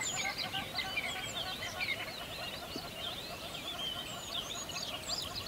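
A dense chorus of many birds chirping and twittering, short quick calls overlapping one another with no pause.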